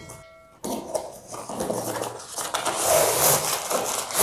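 Cardboard box being opened by hand and a tripod in a black fabric carry bag sliding out of it: continuous rustling and scraping that starts about half a second in and grows louder toward the end.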